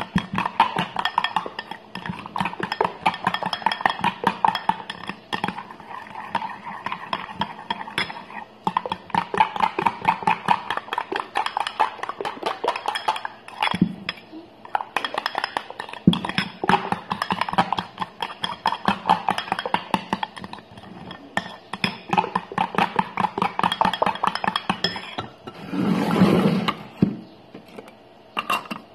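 Background music with a plucked guitar, over a fork clinking and scraping rapidly against a glass bowl as a creamy mixture is stirred. Near the end comes a brief, louder rush of noise.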